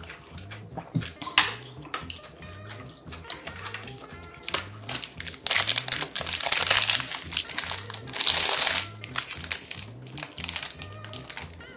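Foil-lined plastic wrapper of an oranda snack bar crinkling as it is torn open and peeled back, in two loud bouts around the middle. Background music with a steady beat plays throughout.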